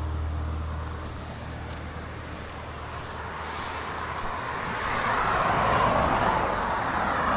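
Road vehicle noise on a wet road: a steady rush of tyres and engine that swells over the last few seconds.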